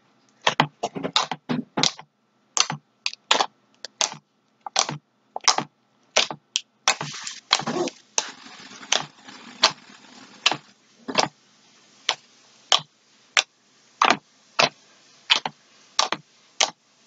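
White Elmer's glue slime being squished and pressed by hand into a plastic tub, making an irregular string of short, sharp clicks and pops, roughly one to three a second.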